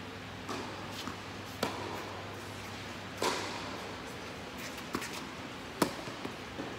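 Tennis balls bouncing on an indoor hard court, a few separate knocks with a short ring in the hall, then a sharp racquet strike on the serve near the end, the loudest sound. All of it sits over a steady low hum.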